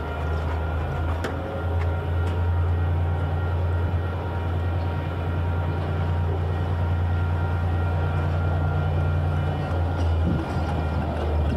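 Diesel locomotive engine running steadily with a deep, even drone, with a few faint metallic ticks over it; the drone eases off right at the end.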